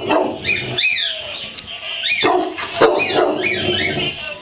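A dog barking repeatedly, a quick run of sharp barks, at something it dislikes.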